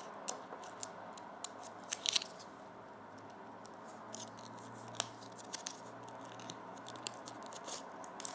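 Small packaging being worked open by hand: scattered light clicks, scratching and crinkling of the wrapper, over a faint steady hum.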